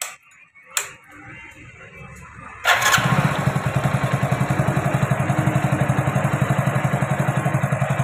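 Two clicks and a faint hum, then about two and a half seconds in the Hero Splendor's single-cylinder four-stroke engine starts and settles into a steady idle with an even, fast pulsing beat.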